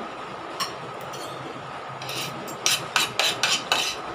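Metal spoons and forks clinking and scraping against plates and pans during a meal, with a few scattered clinks early and a quick run of clinks in the second half.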